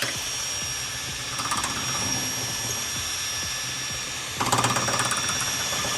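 Power drill running at steady speed with a high-pitched whine while its bit elongates a bolt hole, with louder grinding about a second and a half in and again near four and a half seconds as the bit bites into the edge of the hole.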